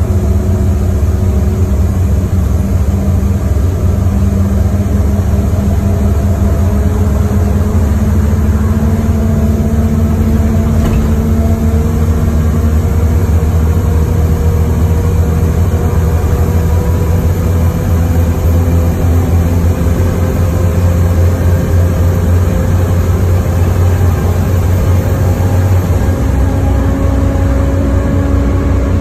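Bus engine and drivetrain running under way, heard from inside the passenger saloon: a steady low drone with a whine that climbs slowly in pitch as the bus picks up speed.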